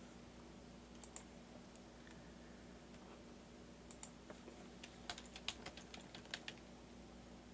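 Faint typing on a computer keyboard: a few scattered key clicks, then a quick run of keystrokes in the second half, over a low steady hum.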